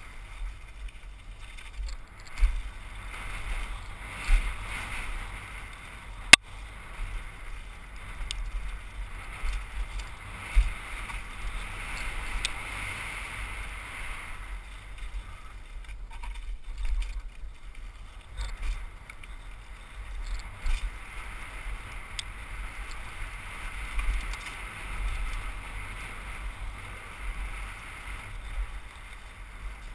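Trek Session 8 downhill mountain bike descending a dirt trail, heard from a helmet camera: a steady rush of tyres on dirt and moving air, with irregular knocks and thumps as the bike rattles over bumps. A sharp click about six seconds in is the loudest sound.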